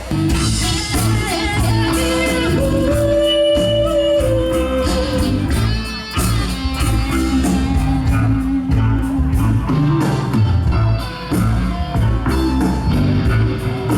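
A live rock song starts, with electric guitar, a steady beat and long held melody notes over it.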